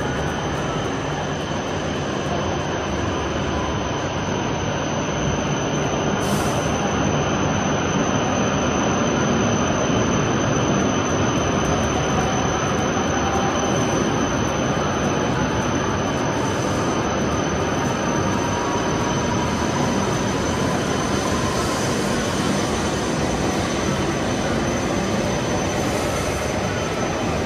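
E7/W7-series Shinkansen train rolling along the platform: a steady, loud rumble of wheels on rail, with a thin high steady tone over it.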